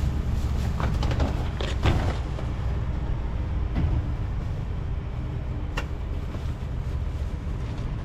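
A vehicle running, with a steady low rumble. A short knock comes about two seconds in and a sharp click near the end.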